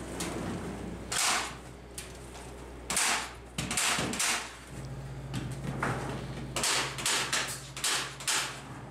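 Staple gun driving staples through insulation netting into wooden wall studs: about ten sharp shots at uneven intervals, several in quick succession.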